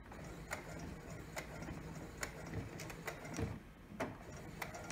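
Brother computerized sewing machine stitching slowly for a back tack at the end of a seam: a low motor hum with a sharp needle click roughly once a second.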